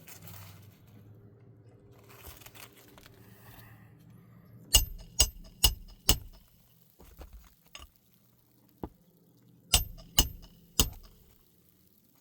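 Sharp clinking taps of hard objects, each with a brief bright ring: four in quick succession, then three more a few seconds later, over a faint low hum.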